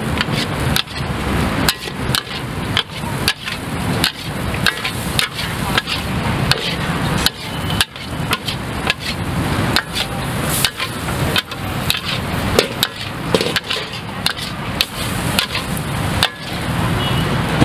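Metal spatula clanking against a wok in a fast, irregular rhythm of about two strikes a second, over a steady rushing noise, as pad thai is stir-fried.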